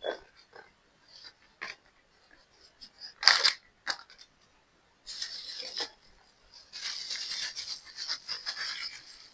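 Packaging being handled and opened: a few sharp taps and clicks in the first half, then a longer stretch of crinkling and rustling in the second half.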